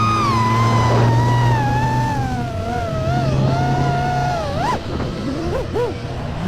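FPV racing drone's motors whining, the pitch sliding slowly downward and then jumping up and down in quick swoops about five seconds in as the throttle is blipped. A steady low hum runs underneath.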